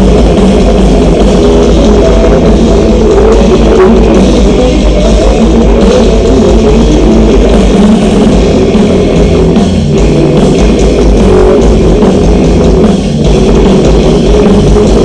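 Rock band sound-checking over a PA: electric guitar and drum kit playing steadily, very loud, heard from the street outside the venue.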